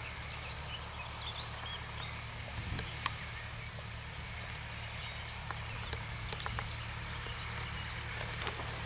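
Case MX100 tractor's diesel engine droning steadily at a distance while pulling a beet seeder, with a few sharp clicks and some faint high chirps about a second in.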